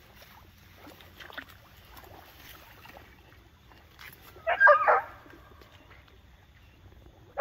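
A hunting hound, an American foxhound, gives one short, loud bay about halfway through, over faint scattered sounds.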